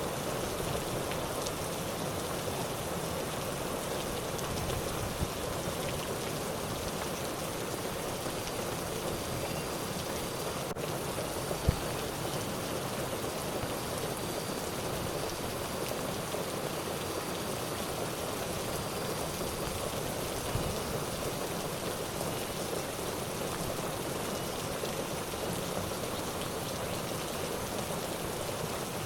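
Steady hiss of rain or running water, even throughout, with a single sharp click about twelve seconds in.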